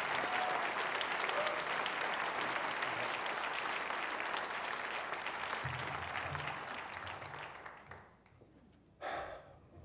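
Audience applauding, the clapping dying away about eight seconds in. A single short noise comes just after the applause ends.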